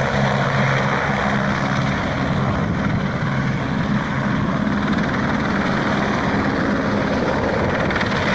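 Light police helicopter hovering low, its rotor and engine running with a steady noise and a low hum.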